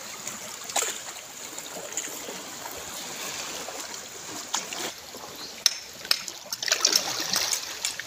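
Shallow seawater sloshing and lapping around shoreline rocks, with splashes from wading through it that come more often in the second half.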